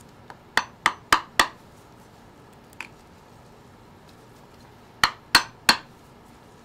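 Steel flathead screwdriver clicking against the base of a deer's antler as it pries the hide away: a quick run of four sharp clicks, a faint one, then three more near the end.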